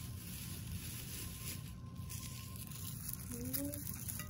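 Rustling and crinkling of paper and foil food packaging over a steady low room rumble, with a short faint voice about three and a half seconds in.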